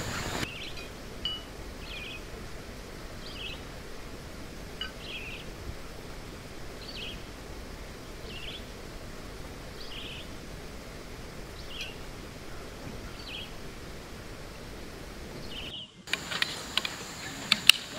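A bird calling with short high chirps, irregularly about once a second, over steady outdoor background noise. After a brief break near the end, a few sharp clicks or knocks, one of them loud.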